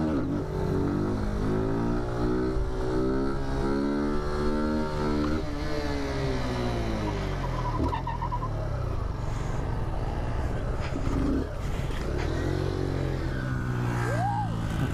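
Small mini-bike engine running under the rider, revving up as it accelerates and then dropping in pitch as it eases off, rising and falling again later, with wind noise over the microphone.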